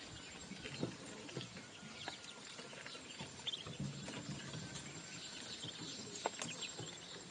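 Ducklings pecking grain from a plastic feeder tray: scattered small clicks and taps from their bills, with a few short, high peeps.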